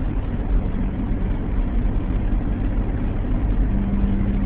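Steady engine and road noise of a car driving, heard from inside the cabin, with a low steady hum joining in near the end.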